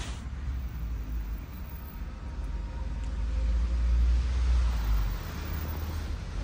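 Low rumble of road traffic going by, swelling a little past halfway and then easing off.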